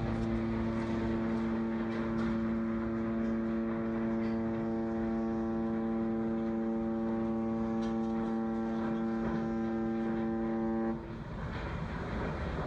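A cruise ship's horn sounding one long, steady warning blast that cuts off abruptly about eleven seconds in, as the ship bears down on a moored boat. A rumble of wind and background noise runs underneath.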